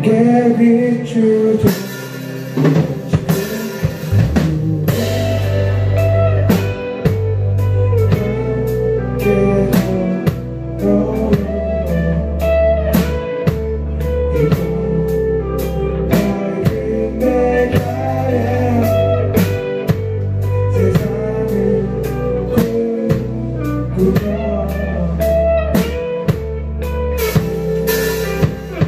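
Live rock band playing: two electric guitars, electric bass and a drum kit keeping a steady beat.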